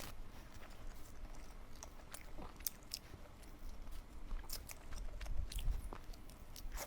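Close-miked chewing and biting: a person eating, with irregular small, sharp mouth clicks and smacks.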